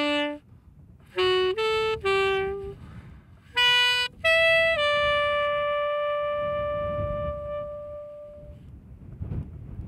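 Solo saxophone playing a short melodic phrase that ends on one long held note, which fades out a little past the middle. Low wind rumble on the microphone rises in the second half.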